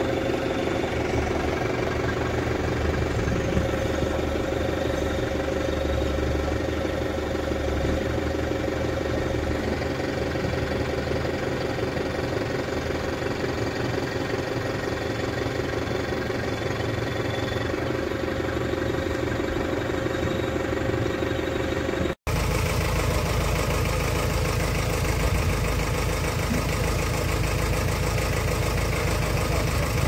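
Forklift engine running steadily. About two-thirds of the way through it cuts to a different engine: a JCB 3DX backhoe loader's diesel running.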